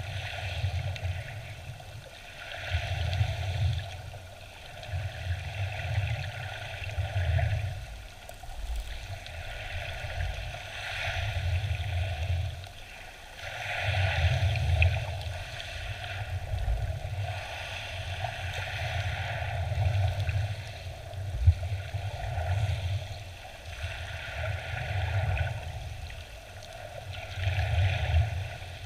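Shallow sea water surging around a submerged camera, heard as a muffled rumble and hiss that swells and fades every couple of seconds, with one sharp tap about three-quarters of the way through.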